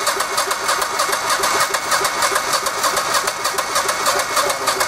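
Electric starter cranking the Generac GP15000E's V-twin engine in a steady, even rhythm without it catching. The engine has just been converted to propane and its fuel mixture is still being tuned at the load block.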